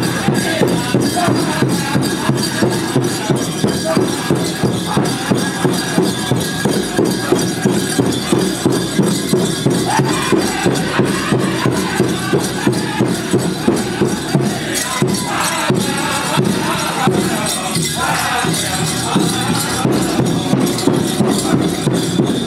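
Powwow drum group playing a chicken dance song: a large drum struck at a steady, even beat, with singers.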